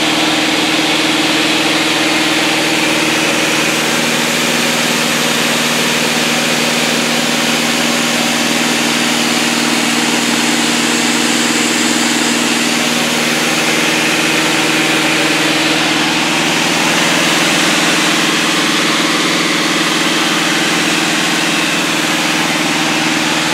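Light single-engine propeller plane's engine and propeller droning steadily in cruise flight, heard inside the cockpit: an unbroken drone with a few held tones under a broad hiss.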